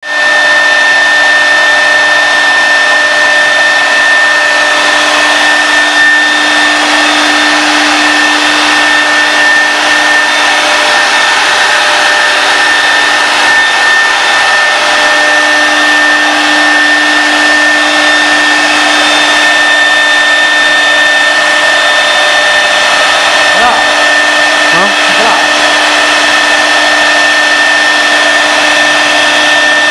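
Spindle of an AP2030 CNC wood router running at speed while its bit routs grooves in a wooden board: a steady high whine over a continuous rushing cutting noise.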